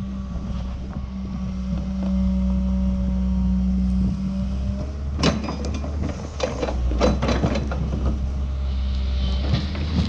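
New Holland excavator's diesel engine running with a steady hydraulic hum while its hydraulic hammer is not striking. From about halfway, scattered metallic clanks and knocks as the hammer is swung and set down.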